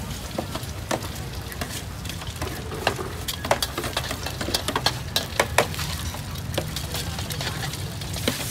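Metal cooking utensils clacking irregularly at a street food stall, over a steady low hum.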